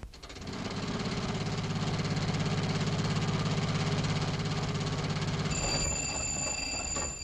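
An old motor car engine, the jitney, running with a fast, even chugging. It builds up over the first second and eases off near the end, when a steady high-pitched tone comes in.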